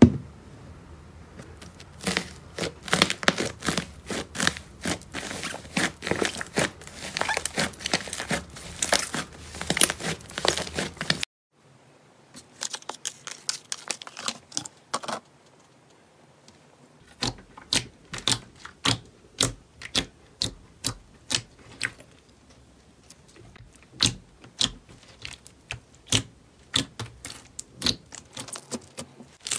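Hands working slime. For about the first eleven seconds, slime covered with paper labels gives a dense run of crinkling, crackling clicks. Then the sound breaks off suddenly, and clear orange slime being stretched and pressed gives a sparser string of sharp, sticky pops and clicks.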